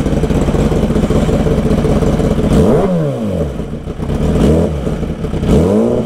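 Kawasaki ZX-10R sport bike's inline-four engine idling, then revved in free blips: the pitch climbs and drops back about two and a half seconds in, again briefly around four and a half seconds, and climbs once more near the end.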